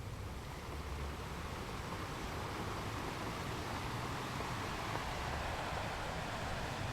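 Ocean waves washing onto a beach: a steady rushing noise that swells a couple of seconds in and eases near the end, over a low rumble.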